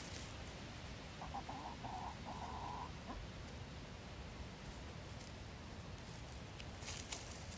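A domestic hen calling: a quick series of short clucks running into a couple of longer notes, starting about a second in and lasting under two seconds. A few brief scratchy crackles near the end.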